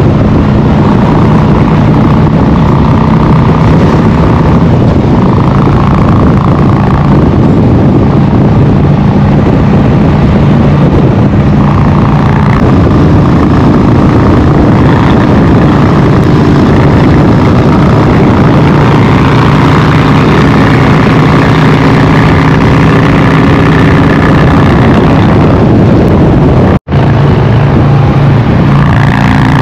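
Harley-Davidson V-twin motorcycle engine running steadily on the road. Its note shifts a little as the throttle changes, and the sound cuts out for a split second near the end.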